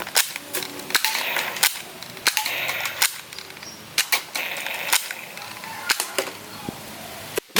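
A string of sharp, gunshot-like cracks, about fifteen of them spaced unevenly, roughly two a second, with the loudest near the end.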